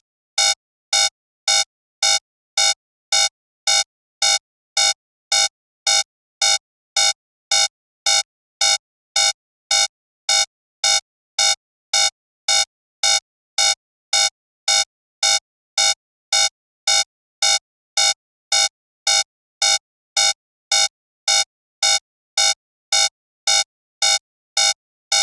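Alarm-clock alarm going off: short electronic beeps repeating evenly, a little over two a second, marking the end of the 30-minute countdown.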